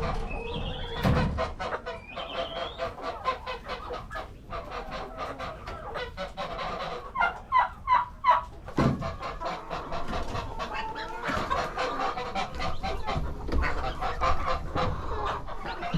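Farm poultry calling and clucking, with a run of four or five loud honk-like calls about seven to eight and a half seconds in.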